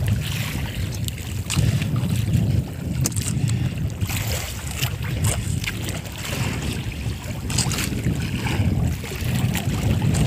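Wind buffeting the microphone and water washing around a small outrigger fishing boat at sea, making a steady low rumble. Scattered sharp clicks and taps sound throughout as the longline is handled.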